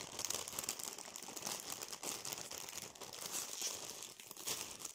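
Lay's crisp packet crinkling continuously as a hand rummages inside it for a crisp.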